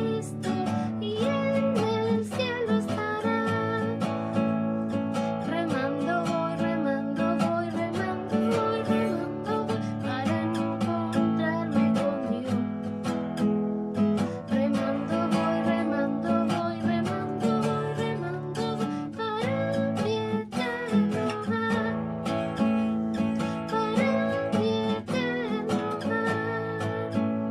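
Acoustic guitar strummed in steady, rhythmic chords.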